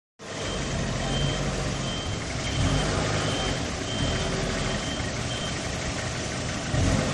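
Forklift's diesel engine running under load while it holds another forklift on its forks, swelling a little now and then. Its backup alarm beeps about every 0.7 s, stopping about five and a half seconds in.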